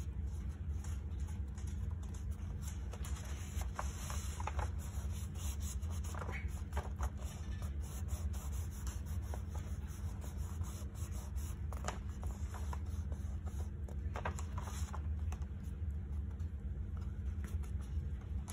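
Paper and journal pages being handled: scattered short rustles and scrapes over a steady low rumble.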